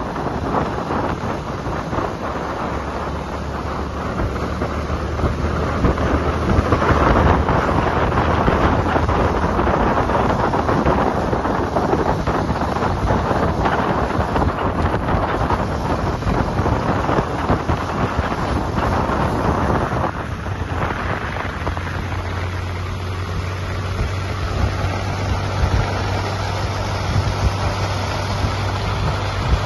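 Heavy wind roar on the microphone of a moving motorcycle, over a steady low motorcycle engine hum that rises slightly in pitch a little past the middle.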